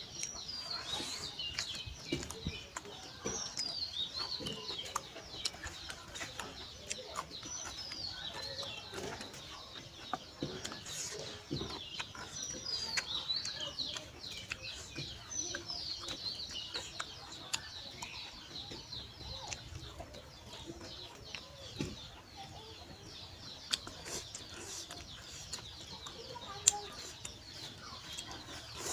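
Birds chirping: short, high, falling calls repeating in runs throughout, over scattered small clicks and smacks of eating.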